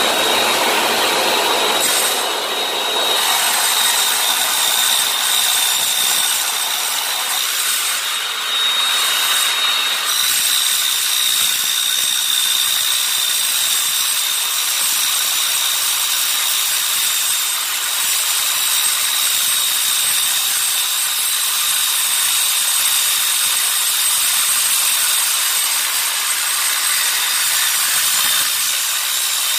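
Miter saw with a Mollar TCT (carbide-tipped) metal-cutting blade running and cutting slowly through a metal bar: a steady high whine over a continuous gritty hiss from the teeth in the metal.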